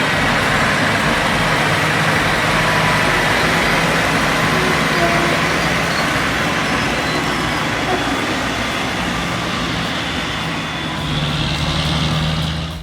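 Heavy Hayes logging truck's diesel engine running steadily under load, with a constant low engine note over a broad mechanical noise that grows slightly louder near the end.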